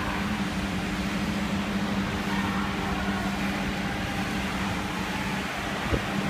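Steady low machine hum over a rumble, the background noise of a factory workshop, with a short knock near the end.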